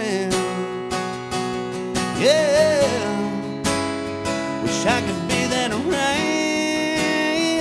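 Acoustic guitar strummed steadily while a man sings a few long, sliding notes over it without words the recogniser picks up: live acoustic country music.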